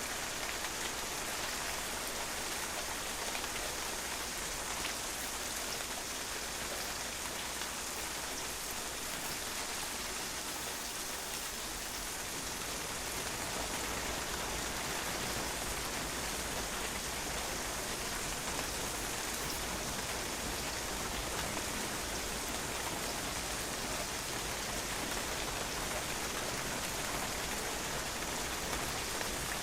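Steady rain falling and drops splashing on a patio, a dense even patter without pause, a little fuller from about halfway through.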